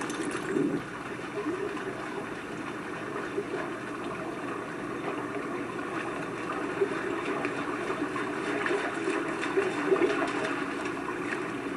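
Water splashing and sloshing as a German Shepherd swims and then wades through shallow lake water, a steady watery wash with small irregular splashes.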